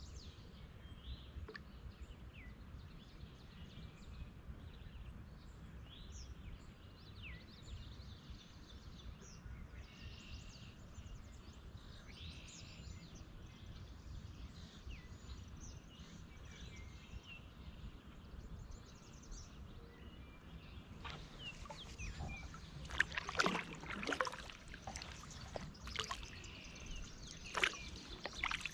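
Small birds chirping and singing over a faint low rumble; in the last several seconds, splashes and drips of a kayak paddle dipping into the water.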